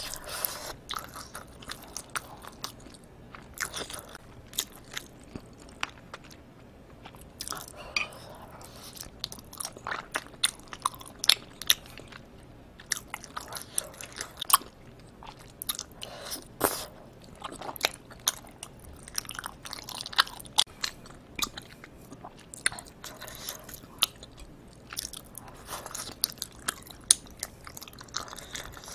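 A person chewing spicy Korean tteokbokki (chewy rice cakes in thick sauce) close to the microphone. Wet, sticky chewing comes with many irregular sharp clicks.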